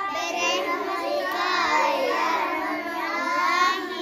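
A group of young girls singing together, several high voices overlapping in a continuous chant.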